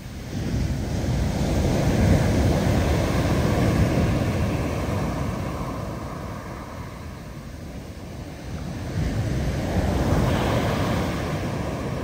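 Big ocean waves breaking and rushing up the beach in two swells, the first building about half a second in and the second near the end, with wind rumbling on the microphone.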